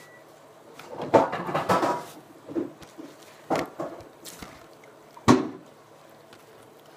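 Borax slime squelching as it is kneaded and pressed by hand on a table, in a few irregular wet bursts, with one sharp smack a little past five seconds in.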